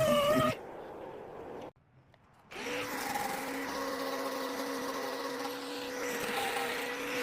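A power tool's motor running at a steady speed, starting about two and a half seconds in after a short near-silence.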